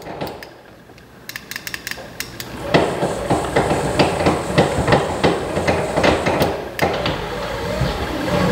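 A rapid, uneven run of sharp knocks and clicks, sparse at first and dense from about three seconds in.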